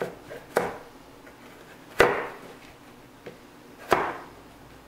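Chef's knife chopping carrots on a cutting board: three sharp chops, a second and a half to two seconds apart, each knocking the blade onto the board, with a fainter tap between the last two.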